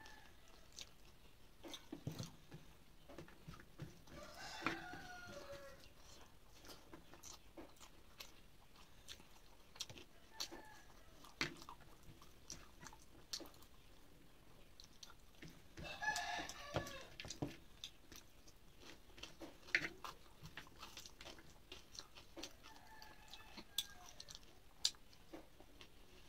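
Close chewing and small mouth and finger clicks from eating rice and curry by hand. A rooster crows in the background about four seconds in and again about sixteen seconds in, each crow falling in pitch at its end, with fainter calls between.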